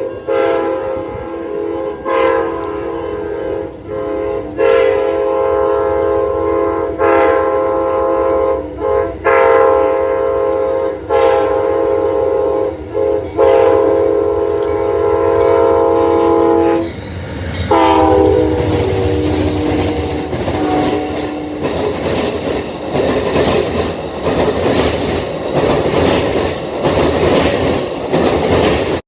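Train horn: a multi-chime horn chord sounded in about seven blasts, broken by short gaps. Near the middle a second, slightly falling horn chord takes over. Then the wheels clatter rhythmically over rail joints as the train passes, until the sound cuts off suddenly.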